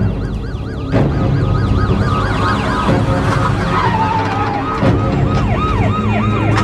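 Several police car sirens sounding at once, their fast rising-and-falling yelps overlapping.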